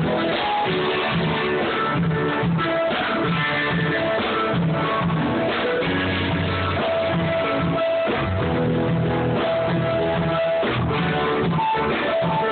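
Guitar-led band music playing without vocals: strummed and picked guitars over drums. The sound is dull and muffled, with no high end.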